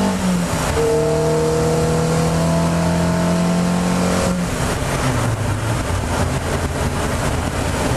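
Race car engine heard from the open cockpit under hard acceleration: a gear change about half a second in, then the revs climb steadily for about three and a half seconds. About four seconds in the engine note drops away, leaving mostly wind and road noise.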